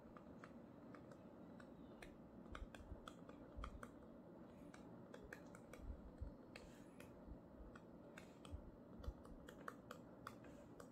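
Faint, irregular taps and clicks of a stylus tip on a touchscreen while handwriting, over low room noise.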